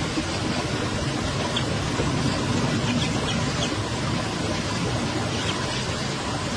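Duckling peeping, about five short high chirps spread through, over a steady rushing background noise.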